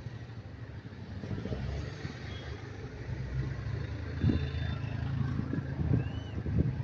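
A motor vehicle's engine running steadily as a low hum, with a few sharp knocks about four and six seconds in.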